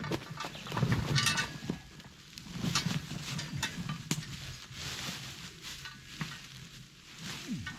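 Scattered clicks, knocks and light clatter of objects being handled, busiest about a second in.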